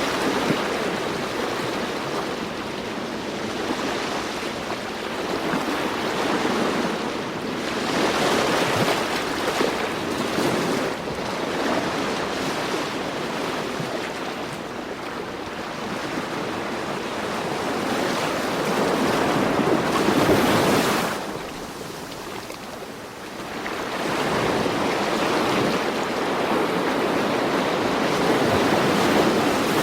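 Ocean surf: waves breaking and washing in, the rushing rising and falling every several seconds, with a short lull about two-thirds of the way through.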